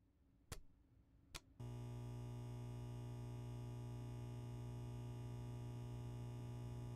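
Two sharp clicks, like a switch being worked, then a steady low electrical hum with many overtones starts and holds unchanged.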